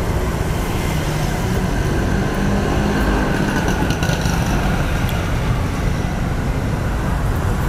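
Steady road traffic noise from motorbikes and cars passing on a wet street. A few light clicks sound about three to four seconds in.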